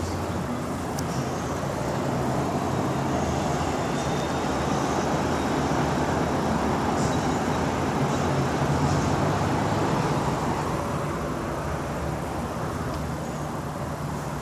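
Steady traffic noise from a highway interchange below a high-rise, growing a little louder around the middle.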